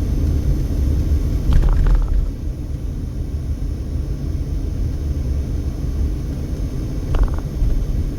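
Steady low rumble of a car's engine and tyres on the road, heard from inside the moving car, with a brief sharper sound about one and a half seconds in and another short one near the end.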